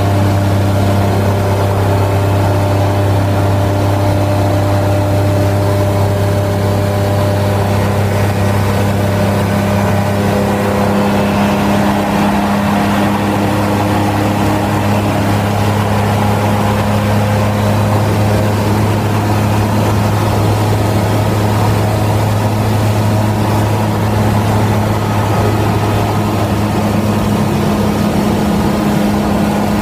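Rotax 670 two-stroke twin engine and propeller of a Kitfox 3 light aircraft running steadily in flight, a loud, even drone with a deep hum, heard from inside the cockpit.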